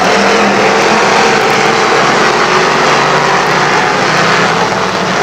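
A pack of street stock race cars running on a dirt oval: the engines of many cars at once make a loud, steady, blended drone with no single engine standing out.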